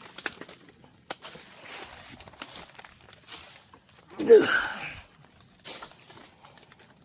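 Rustling of leaves and brush with scattered snaps and clicks. About four seconds in, one short, loud voice-like sound that bends in pitch.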